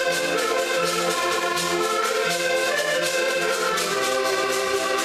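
Several accordions playing a folk tune together in sustained chords, with a steady percussive beat.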